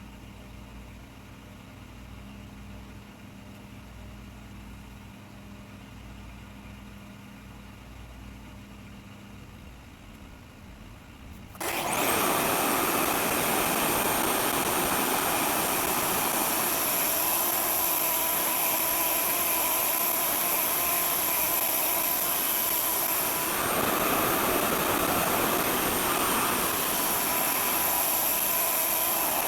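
RevAir reverse hair dryer, a vacuum-driven dryer that draws the hair into a tube: a faint low hum, then about twelve seconds in the blower comes on suddenly and runs with a loud, steady rushing noise.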